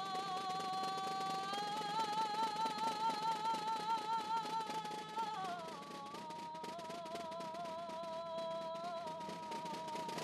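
A woman singing solo without accompaniment, holding long notes with a wide vibrato; the melody steps up about a second and a half in and drops about five and a half seconds in.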